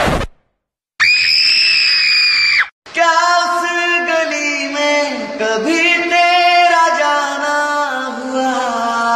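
A long, high-pitched scream held for under two seconds, about a second in. It is followed by a man's voice singing or chanting in long, drawn-out notes that slide in pitch.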